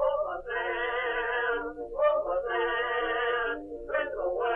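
Singing: one voice holds long notes with vibrato in short phrases, a song of the period.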